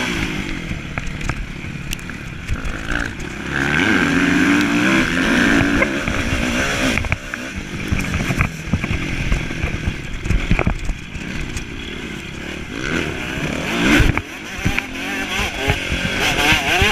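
Kawasaki motocross bike engine, heard close up from a camera on the bike, revving up and down as it rides a dirt track. Sharp knocks and clicks run through it, with a louder knock about 14 seconds in.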